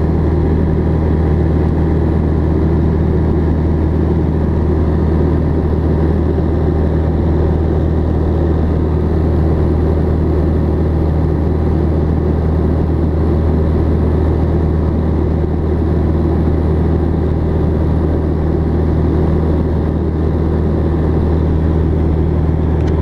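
Single-engine light aircraft's piston engine and propeller heard from inside the cockpit in level flight: a steady low drone with a rush of air over it, unchanging in pitch and level.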